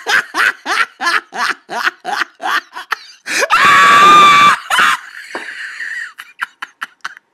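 A person laughing in quick rhythmic bursts, about five a second, for roughly three seconds, then a loud scream lasting about a second.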